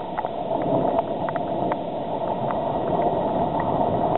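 Steady wash of runoff water after a hailstorm, with scattered light ticks.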